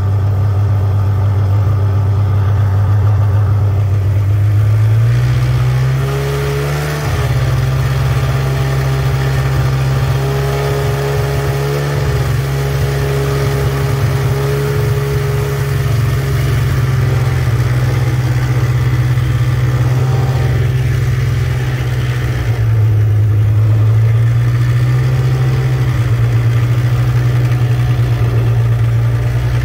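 Snowmobile engine running at low speed while pulling children on tubes, its pitch stepping up about five seconds in, dropping briefly a little past twenty seconds, then climbing again.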